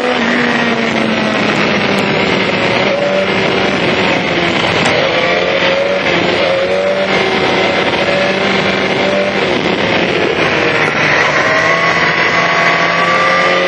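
BMW S1000XR inline-four engine through an Akrapovic exhaust, pitch rising and falling as the bike accelerates and eases off, over a steady rush of wind noise.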